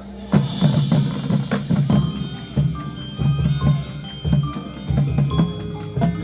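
Marching band music: a held chord breaks off about a third of a second in to a percussion passage, drums struck in a busy, uneven rhythm with short ringing mallet-percussion notes over them.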